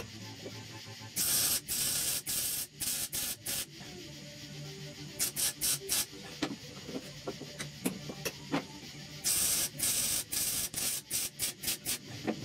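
Welding in short sputtering bursts on the thin sheet-metal inner roof of a 1969 Chevy C10, filling rust pinholes and tacking a patch panel. There are three spells of welding, about a second in, around five seconds in, and again from about nine seconds on, with pauses between them.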